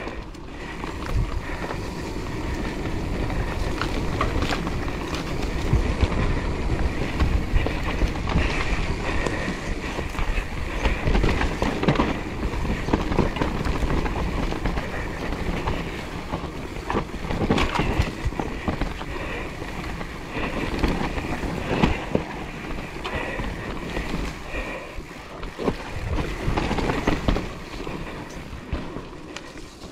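Mountain bike riding down a dirt forest trail: knobby tyres rolling over earth and roots, with the chain and frame rattling and knocking over the bumps. It eases off near the end.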